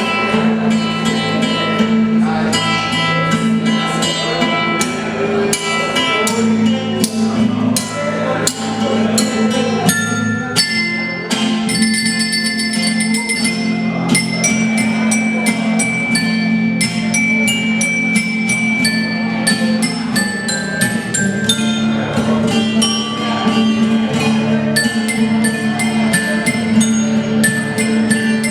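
Live instrumental folk music: a sustained low note runs under sharp clicking percussion and bright, ringing tuned notes.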